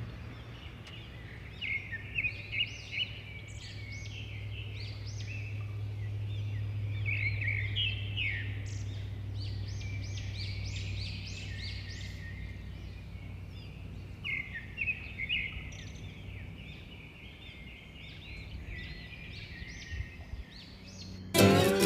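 Several songbirds chirping and singing in quick runs of short notes, over a steady low hum. Acoustic guitar music starts just before the end.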